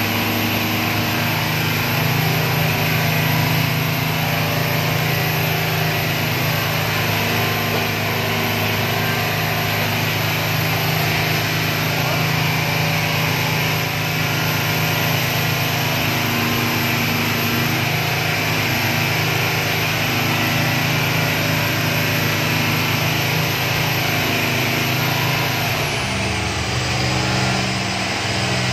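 Motorboat engine running steadily under way, a constant drone mixed with the rush of water against the hull, heard from inside the helm cabin. The engine note changes near the end.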